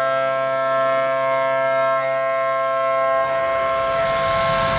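CNC mill roughing aluminium with a Kennametal KOR 5 end mill: the cutter gives a loud, steady, multi-tone whine. A rushing hiss of coolant spray and flying chips and a low rumble come in near the end.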